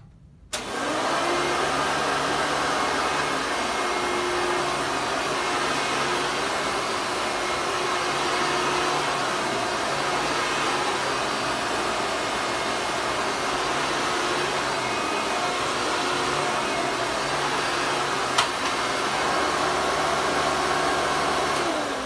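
1993 Hoover Legacy Supreme upright vacuum cleaner switched on about half a second in and running steadily, with one sharp click near the end. The owner finds the motor sounds weird and takes it for something wrong with it, needing grease and new belts.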